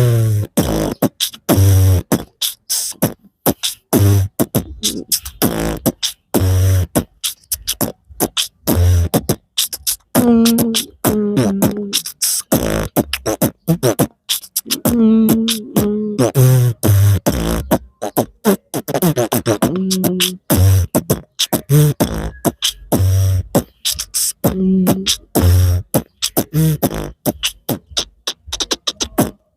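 Human beatboxing in a rock-music style. Mouth-made kick-drum thumps and sharp snare and hi-hat clicks keep a steady beat, with pitched vocal tones mixed in between the beats.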